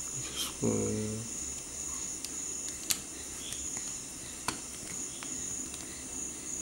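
Steady high-pitched chirring of crickets, with a few light clicks as small tools handle the phone's charging-port board. A short hummed voice comes about a second in.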